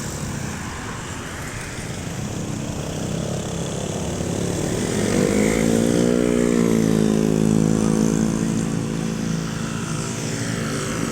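A road vehicle's engine passing: it grows louder, rises in pitch about five seconds in as it speeds up, holds steady, then eases off near the end, over steady traffic noise.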